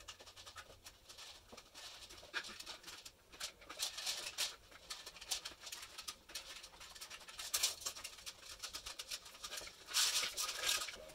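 Faint handling of 3D-printed PLA plastic parts: scattered light clicks and rubbing as segments are fitted and a strip is slid into its channel, with a louder scrape about two-thirds of the way through and a longer rustling scrape near the end.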